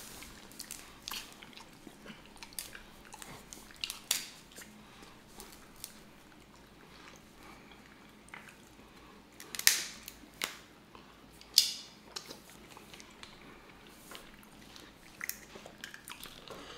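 Snow crab legs being eaten close to the microphone: shells cracking between teeth and wet chewing and sucking, in scattered sharp cracks, the loudest two a little under ten and about twelve seconds in.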